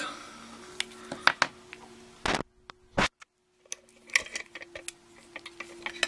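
Small metal clicks and clinks from handling the opened brass padlock and lock picks at a bench vise: scattered sharp clicks, the two loudest about two and three seconds in, then a run of lighter ticks.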